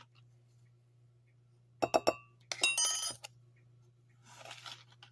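Measuring spoon clinking against a mug: a few sharp taps about two seconds in, then a second quick cluster of ringing clinks about a second later. A soft, brief rustle near the end.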